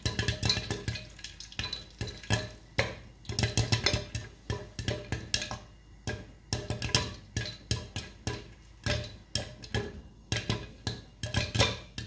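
Popcorn kernels popping inside a covered aluminium pressure cooker, a run of irregular sharp pops that come in clusters, over background music.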